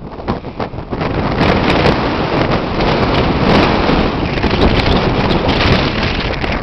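Wind buffeting the camcorder's microphone: a loud, gusting rush of noise that swells and dips.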